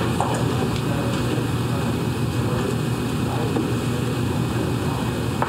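Steady low hum and hiss of room background noise, even throughout.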